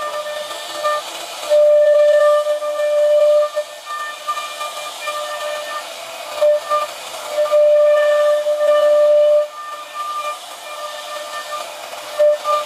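CNC router spindle whining at high speed as its bit cuts grooves into a wooden door panel, with a hiss of cutting underneath. The whine swells louder for a couple of seconds at a time, twice, then again briefly near the end.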